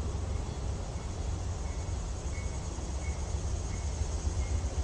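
Low steady rumble of a heavy BNSF freight train nearing a road crossing. Over it, a faint crossing-signal bell dings about one and a half times a second, and insects trill high and steady.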